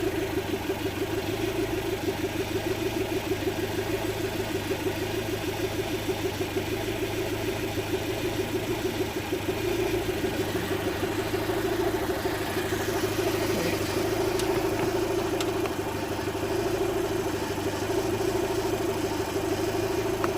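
Land Rover Freelander's 1.8 petrol four-cylinder K-series engine idling with a rhythmic pulsing that steadies out about halfway through. The engine has a misfire that the technician suspects needs new spark plugs.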